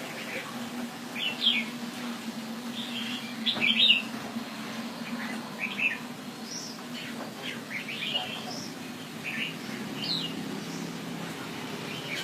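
Red-whiskered bulbul singing: short, bright chirping phrases one after another, the loudest about a second in and just before four seconds. A faint low steady hum runs underneath through the first half.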